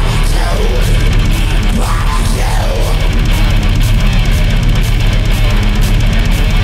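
Heavy metal instrumental jingle: electric guitar over fast, even drum strokes, with a lead line that slides up and down in pitch during the first few seconds.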